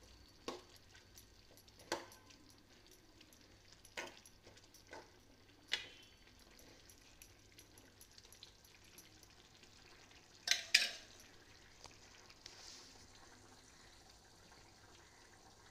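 A ladle stirring simmering chicken curry in a metal kadai, knocking against the pan now and then, with the loudest pair of knocks about ten and a half seconds in. The curry bubbles faintly underneath.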